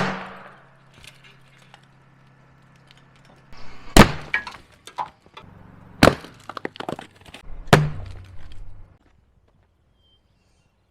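Sierra Blaster cartridges going off in drilled rock: a sharp, loud bang right at the start, then three more about 4, 6 and 8 seconds in, with smaller cracks and clattering rock fragments between them.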